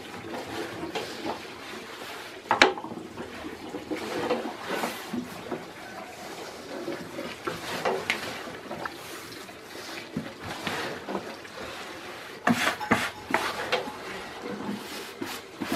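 Thin wooden rolling pins rubbing and knocking on a wooden board as yufka dough is rolled out, in scattered knocks over a low rustle. There is one sharp knock about two and a half seconds in, and a cluster of knocks near the end.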